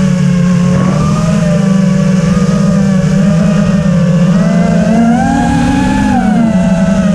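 FPV quadcopter's motors whining steadily, the pitch climbing a little about five seconds in and then settling back.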